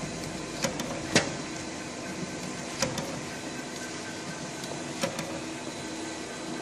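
SAVEMA feeder-conveyor belt and SVM 32i thermal transfer printer running, a steady machine hum broken by several sharp clacks as cartons are fed through and printed.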